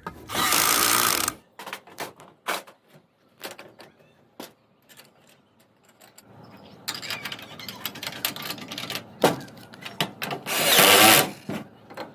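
Cordless power screwdriver driving Allen screws into the clamps of a coated iron pipe frame, in short bursts of about a second near the start and again near the end. Between the bursts come sharp clicks and knocks of the pipes and clamps being handled.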